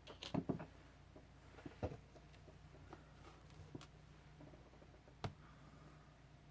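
A few scattered light clicks and knocks of jewelry tools being handled on a work table: a cluster of them at the start, then single ones about every second or two, with a faint steady hum underneath.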